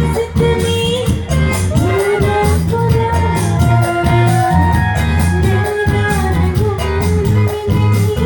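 Woman singing live into a microphone, backed by a band with electric guitar, keyboards and drum kit, played loud through stage speakers.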